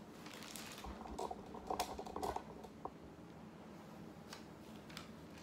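Faint handling noises in a small room: light rustling and a few soft clicks and knocks, mostly in the first half.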